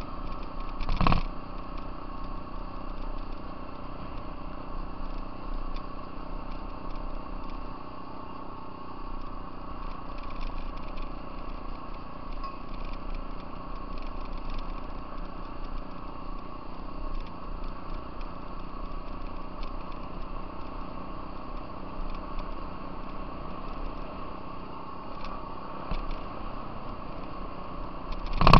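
Off-road vehicle engine running steadily at an even cruising speed while riding a gravel trail, with a sharp knock about a second in and another near the end.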